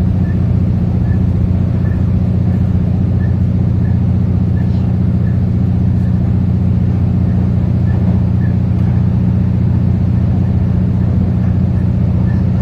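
Inside a moving Adelaide Metro 3000 class diesel-electric railcar: the steady, low drone of the railcar running at speed, unchanging throughout.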